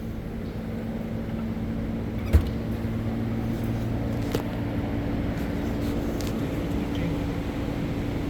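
Steady mechanical hum with a few held low tones, and a single sharp knock about two and a half seconds in, with a fainter click a couple of seconds later.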